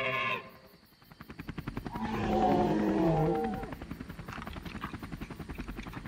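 Toy helicopter's rotor sound, a fast, even chopping, with a dinosaur roar about two seconds in that falls in pitch at its end and is the loudest sound.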